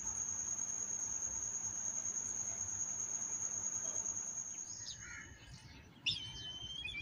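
Crickets chirring in one steady high tone, which stops about five seconds in. Birds then start chirping, with a sudden louder call and a quick trill near the end.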